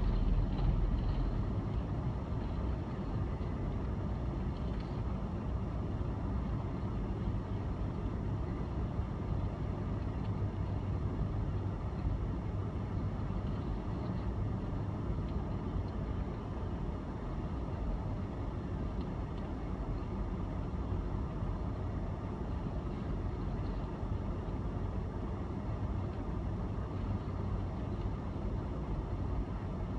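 Steady low rumble of engine and tyre noise from a car driving slowly down a snowy highway, heard from the following vehicle, with no distinct events.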